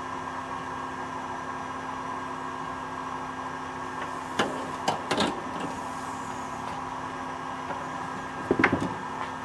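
A steady electrical hum, with a few metallic clicks and knocks from the soldering iron being set in its stand and the metal jointed arms of a helping-hands clamp being turned: a few knocks around the middle and a short cluster near the end.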